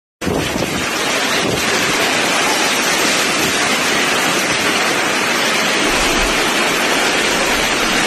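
Heavy hailstorm: a dense, steady roar of hail and wind pouring down outside open entrance doors.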